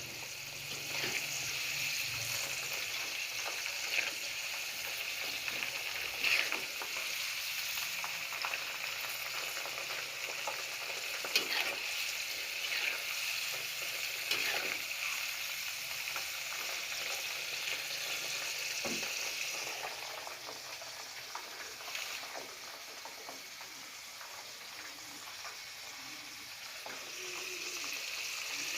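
Grasshoppers frying in hot oil in a pan, sizzling steadily, with scattered scrapes and knocks as they are stirred. The sizzle eases a little about two-thirds of the way through, then picks up again near the end.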